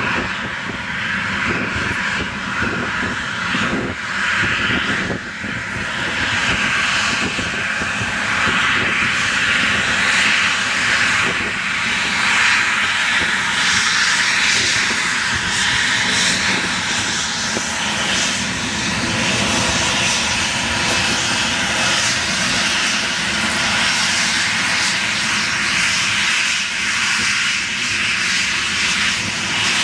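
Boeing 737-800 CFM56 turbofan engines running at high thrust for take-off: a steady, loud rush of jet noise with a faint whine over it.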